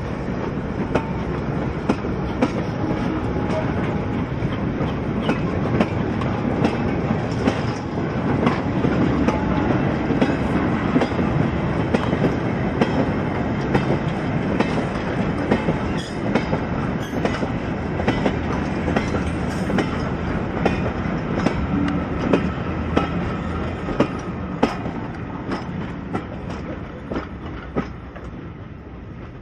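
A train of goods wagons rolling past on the track, their wheels clicking over the rail joints in a steady run of sharp clicks. The sound fades over the last few seconds as the rear wagons move away.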